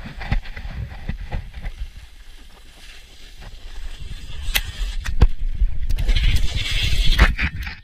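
Snowboard sliding and scraping over snow, with knocks and clatter as the board hits bumps and a low wind rumble on the GoPro's microphone. The scraping hiss gets louder in the last couple of seconds as the edge carves and sprays snow.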